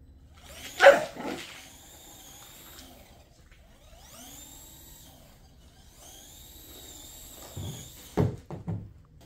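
A dog barks sharply about a second in. Between barks the high whine of the Redcat MT-18 mini monster truck's electric motor rises, holds and falls several times as the truck drives in short runs. A few more short, low barks or knocks come near the end.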